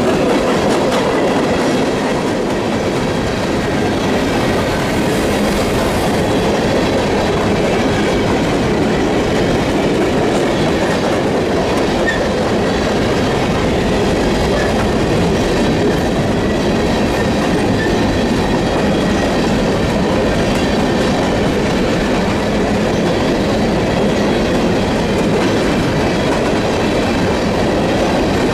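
A coal train's hopper cars rolling past on the rails: a steady, loud rumble and clatter of wheels over track joints, with a faint thin ringing tone over it.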